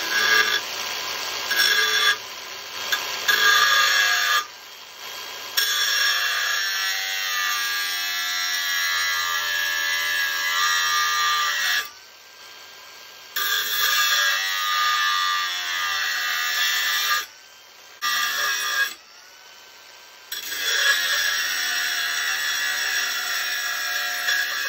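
Angle grinder with a thin cut-off disc cutting a notch into the aluminium rear dropout of a Xiaomi M365 scooter frame: a loud, high-pitched metal-cutting whine with ringing tones and a wavering pitch. It drops away briefly several times.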